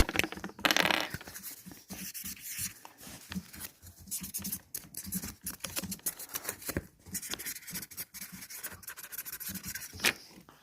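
Quiet handling noises of craft work: rapid, irregular small scratches and clicks, with a sharper click about ten seconds in.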